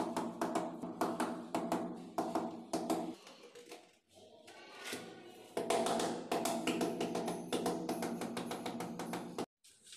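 Rubber mallet tapping a large ceramic wall tile in quick succession to bed it into the adhesive. The tapping stops about three seconds in, resumes about two and a half seconds later, and cuts off suddenly near the end.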